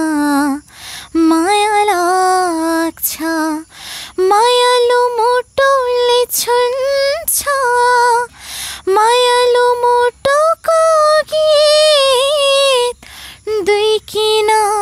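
A teenage girl singing a Nepali love song solo, without accompaniment, in long held notes that bend and waver, with short breaths between phrases.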